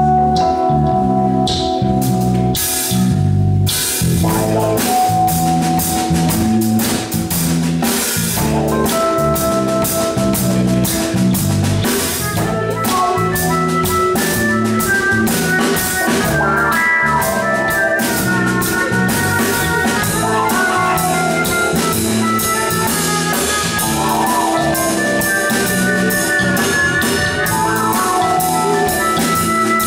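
Live instrumental funk-fusion band: electric bass, drum kit, electric guitar and keyboard playing together. A bass groove carries the opening with little drumming, the full drum kit with busy cymbals comes in about four seconds in, and a melodic lead line rises over the groove from about twelve seconds in.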